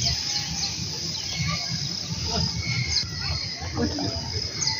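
Insects chirping in a fast, regular repeating pattern over a low rumbling background.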